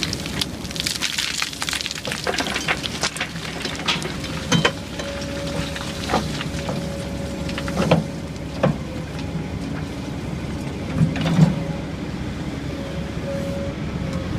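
Kobelco 240 excavator running under load while it loads a CAT 725 articulated dump truck: a steady engine drone with a whine that comes and goes. Dirt and rock clatter into the dump body at the start, followed by several separate thumps.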